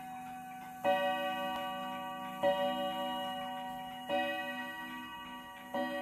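Hamilton mantel clocks striking the hour: about one stroke every second and a half, four in all, each a sharp strike that rings on with several tones.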